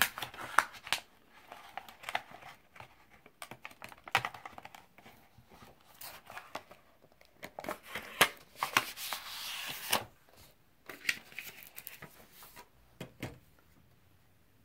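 Paper and card packaging being crinkled and torn while oracle cards are taken out and handled, with irregular crackles and sharp clicks that die away near the end.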